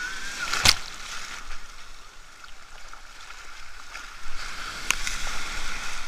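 Sea waves washing and churning at the shore, a steady rush with two sudden sharp slaps, one just under a second in and another about five seconds in.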